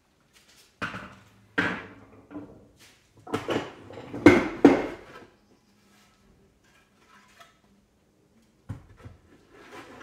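Wooden knocks and clatter as a frame saw is set down and freshly ripped wooden boards are picked up and handled: a run of about six knocks in the first five seconds, then a single knock near the end.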